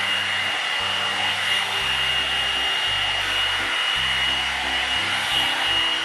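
Hot air brush blowing on its high setting: a steady rush of air with a thin, high, constant whine from its fan.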